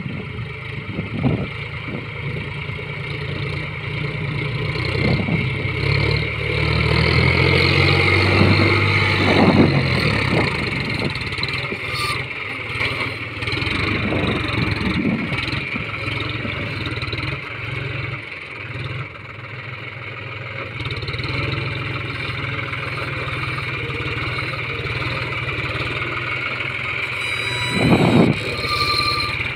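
John Deere tractor's diesel engine running under load as the front loader drives up and raises a bucket of sand. It gets louder for a few seconds about six seconds in. Near the end, sand pours out of the tipped bucket into a trolley.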